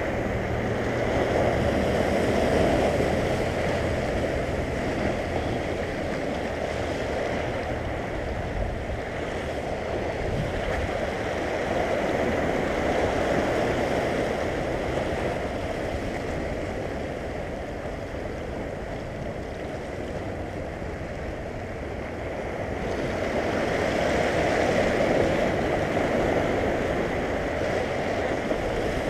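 Sea surf washing over a low rock shelf: a steady rushing that swells and ebbs slowly, loudest a couple of seconds in and again near the end.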